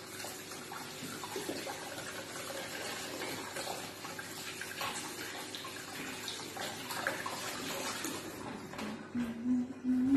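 Kitchen tap running into a stainless steel sink while hands are washed under it, with irregular splashing. Near the end the water gives way to a short voice sound, the loudest moment.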